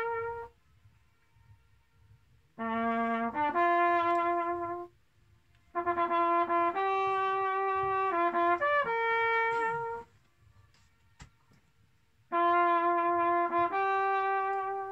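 A lone trumpet-type brass horn played live in short melodic phrases, three of them plus the tail of one more, with pauses between. It is the Königssee boat's echo demonstration, where the notes are played out across the lake and come back faintly off the rock walls in the pauses.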